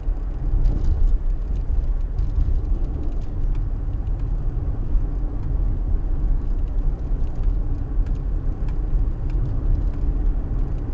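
A car in motion, heard as a steady low rumble of road and engine noise, with a few faint scattered clicks.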